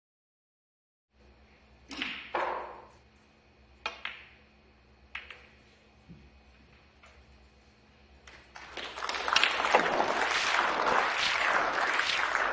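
After a second of silence, snooker balls click sharply a few times as shots are struck and balls collide. About eight seconds in, an audience breaks into applause lasting about four seconds.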